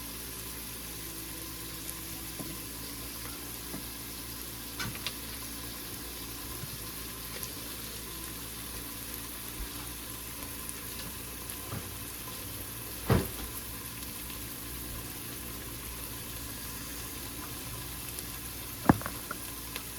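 Onions sizzling as they fry in a pan, a steady hiss. A few short knocks sound over it, the loudest about thirteen seconds in and a sharp one near the end.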